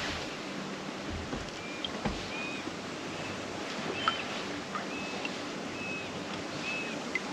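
Steady rush of breeze on the microphone by the lake, with a few low bumps in the first couple of seconds. A small bird repeats a short, high call about once a second over it.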